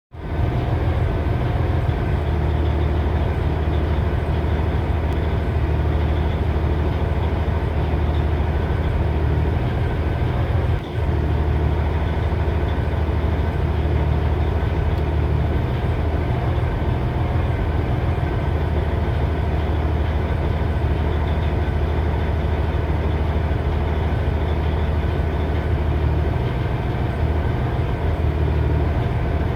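2006 Cummins ISX 15-litre inline-six diesel idling roughly. A steady low drone whose deepest note fades out and comes back every few seconds, with a brief dip in level about eleven seconds in.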